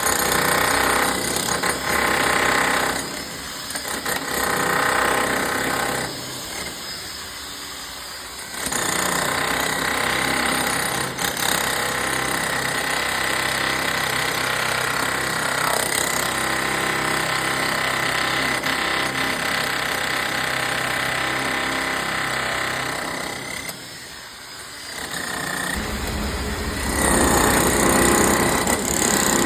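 Power drill boring into a concrete slab, running loudly and steadily. It drops off briefly several times as the operator eases off.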